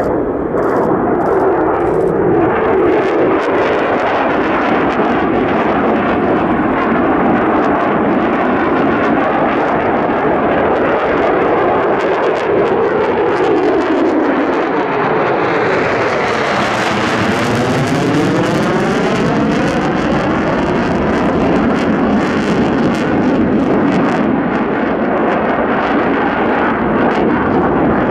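Mitsubishi F-2 fighter's single F110 turbofan engine running loud and steady through a display manoeuvre. About halfway through, as the jet passes closest, the noise turns brighter and hissier, with a phasing tone that sweeps down and then back up.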